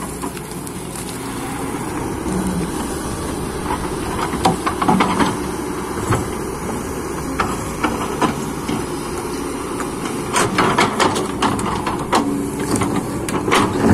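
Excavator's diesel engine running under load while the bucket scrapes and digs through soil and stones. Sharp clanks and knocks of rock and steel come a few seconds in and again through the last few seconds.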